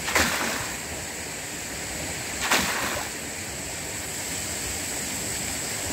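Bunyip PA13 hydraulic ram pump cycling: two sharp strokes of its valve about two and a half seconds apart, each followed by a brief rush of water, over steady running water. The pump is running in self-regulating mode because its supply pipe isn't running full.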